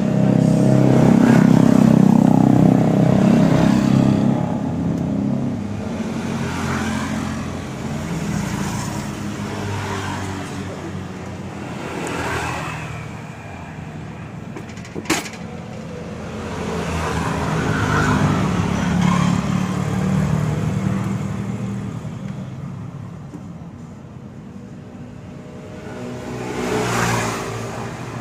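Road traffic passing close by, vehicle engines swelling and fading about three times, with one sharp click about halfway through.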